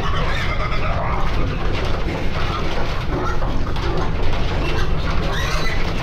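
A crowd of pigs grunting and squealing as they are driven along a pen passage with a pig board, over a steady low rumble.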